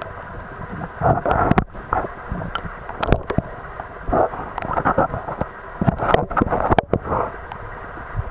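Stream water gurgling and sloshing around a camera held just under the surface, coming in uneven swells, with a few sharp knocks and clicks from the submerged camera being handled.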